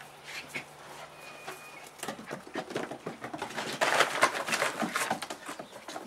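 Puppies scuffling and wrestling on a wooden deck: a quick, uneven clatter of small knocks and scrapes from their feet on the boards, starting about two seconds in and busiest in the second half.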